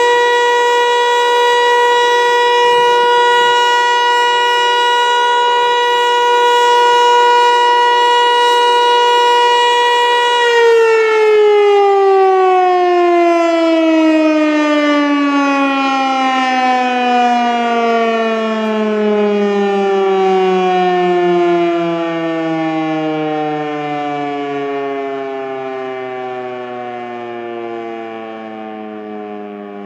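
Eclipse 8 outdoor warning siren sounding on its scheduled test. It holds a steady, loud tone, and about ten seconds in the pitch begins falling smoothly and the sound fades as it winds down.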